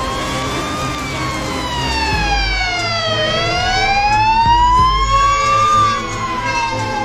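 Hungarian fire engine's siren wailing, its pitch sliding slowly down, up and down again, each sweep lasting about two and a half seconds, over a low rumble that swells twice.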